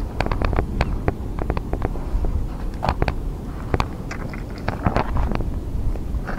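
Irregular clicks, taps and rustles of hands and fishing line as a hooked tilapia is hauled up out of the water, over a steady low rumble of wind on the microphone.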